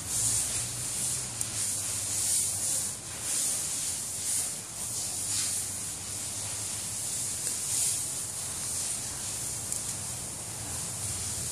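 A steady high-pitched hiss that swells and fades about once a second, over a faint low hum.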